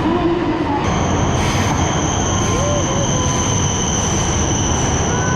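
Train running past or in motion with a low rumble, joined about a second in by a steady high-pitched whine that holds.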